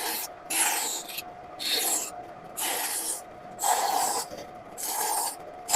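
A hand tool rubbing back and forth across wood in regular strokes, about one a second, each a short rasping scrape.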